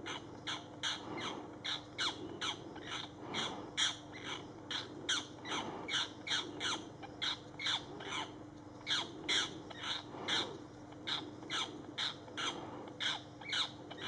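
Pied cuckoo giving rapid, harsh distress squawks, about two or three a second, each a short call falling in pitch, as it is held down by a hawk.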